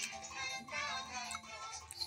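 Background music with a singing voice carrying a melody.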